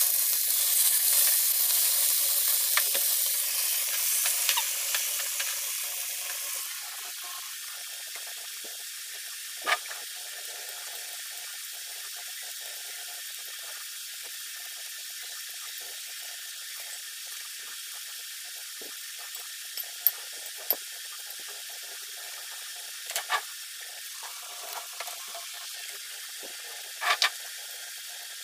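Whole fish frying in hot oil in a nonstick pan: a loud steady sizzle that drops away about six seconds in. After that a faint steady hiss remains, broken by a few light clicks and taps.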